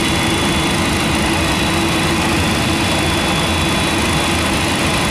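Steady jet engine noise inside the MD-10-10 cockpit as a General Electric CF6 turbofan accelerates through its start after light-off, starter still engaged, with the other engines and the APU also running. A steady hum and a faint high whine sit under the noise throughout.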